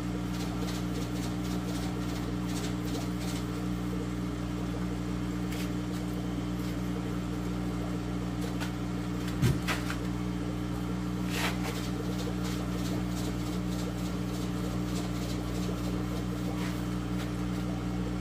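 A steady low electrical hum, like aquarium pumps, with faint scraping and ticking as a Flipper Edge Max magnetic algae cleaner is slid over the acrylic aquarium wall. There is one sharp thump about halfway through, and a short scrape a couple of seconds after it.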